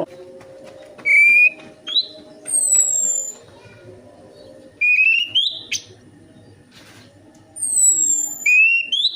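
Orange-headed thrush singing in short, loud whistled phrases. Each phrase pairs a rising note with very high, sweeping, falling whistles, and the phrases come in clusters about a second or two apart. A faint steady hum runs underneath.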